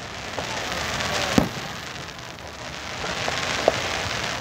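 Aerial firework shells at a display: a sharp bang about a second and a half in and a smaller one near the end, over a steady crackling hiss like rain as the burst's sparks glitter and fall.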